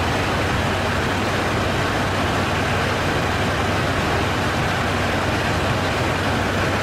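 Steady rushing noise inside an airliner's cockpit in flight, airflow and engine noise with a low hum underneath.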